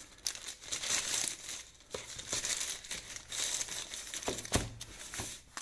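Plastic courier mailer bag crinkling and rustling as a cardboard box is pulled out of it, in irregular handling bursts with a couple of short pauses.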